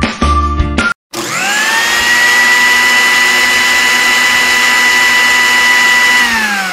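Miniature toy blender's small electric motor starting up about a second in with a quickly rising whine, then running at a steady high whine while blending watermelon pieces in its glass jar, and beginning to wind down, its pitch falling, near the end.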